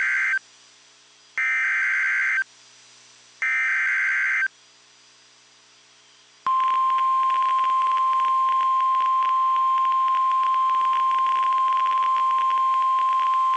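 Emergency Alert System data bursts: the end of one raspy digital burst and two more, each about a second long and a second apart, which mark the end of the previous warning message. About six and a half seconds in, the steady 1050 Hz NOAA Weather Radio warning alarm tone starts and holds, with crackly static under it.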